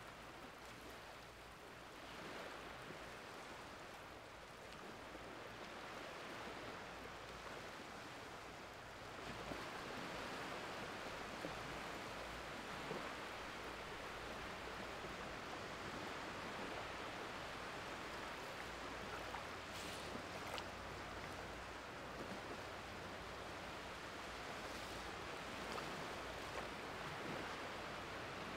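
Shallow sea water washing softly over a flat sandy beach as the tide comes in: a steady wash of small ripples that gets a little louder about nine seconds in.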